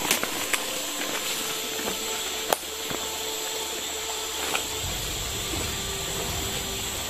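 Steady rush of flowing spring water, with a few sharp clicks, the loudest about two and a half seconds in.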